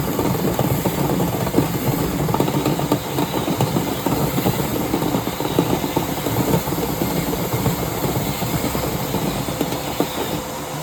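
Dryer-vent cleaning brush on extension rods, spun by a drill and run up inside the vent duct: a steady motor whir under a dense, fast rattle of the brush and rods knocking and scraping against the duct.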